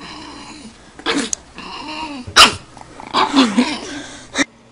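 Pug puppy barking and yipping in short high calls, the sharpest bark about two and a half seconds in.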